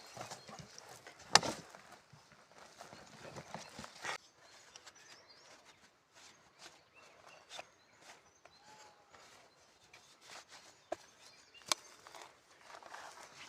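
Scattered knocks and clicks with faint rustling, the loudest knock about a second and a half in and another sharp click near the end; no engine is running.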